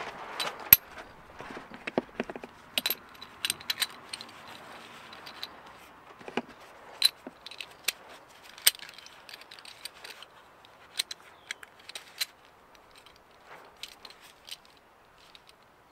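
Irregular small metallic clicks and clinks as the steel ball bearings and cage of a Porsche 944 Turbo CV joint are pressed into place by hand.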